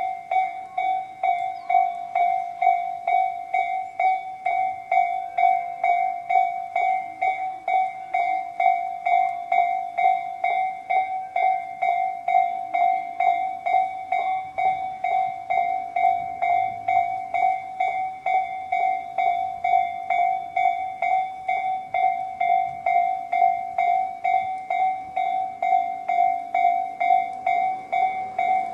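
Electronic railway level-crossing alarm of the Tobu Railway type known as Tobu sound C, sounding its warning: a clear ringing tone struck over and over at a quick, even rate.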